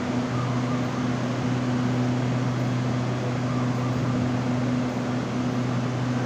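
Hitachi AT-100 electric multiple unit humming steadily, a fan-like rushing noise over a low, unchanging hum.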